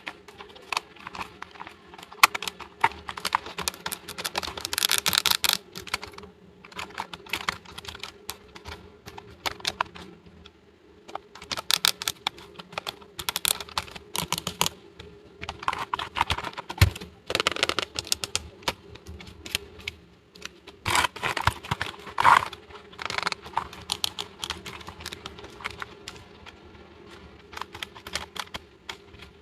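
Small plastic toy pieces being handled and set down, with quick irregular clicks and taps and a few short rustles.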